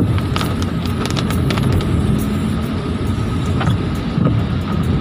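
Car driving on a wet road, heard from inside the cabin: a steady low rumble of engine and tyres with scattered light ticks.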